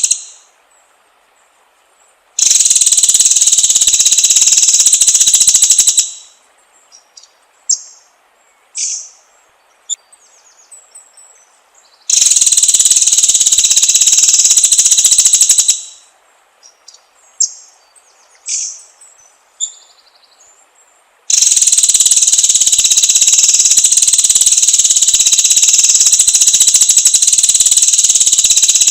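Three long, loud, high-pitched buzzing trills of several seconds each, with short chirping songbird notes in the quiet gaps between them.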